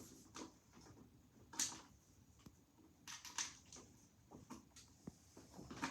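Faint handling noises: a few short rustles and clicks spaced over several seconds, with a sharper click about five seconds in.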